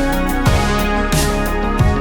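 Background music: an electronic track with a steady beat.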